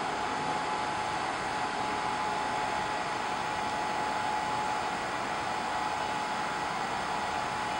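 Hot-air heater and cooling fans of a BGA rework station blowing steadily mid-way through a heating cycle, a rush of air with a thin steady tone over it.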